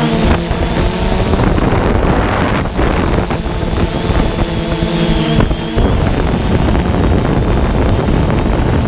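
DJI Phantom 2 quadcopter's electric motors and propellers whining in flight, heard up close from a camera mounted on the drone, the pitch of the hum shifting now and then as it manoeuvres. Wind buffets the microphone throughout.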